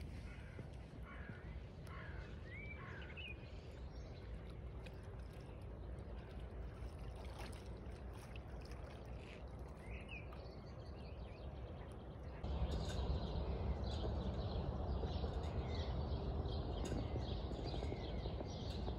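Outdoor lakeside ambience: a steady low rumble with a few faint bird chirps in the first seconds and again around ten seconds in. About twelve seconds in it switches to a louder, steadier rushing noise.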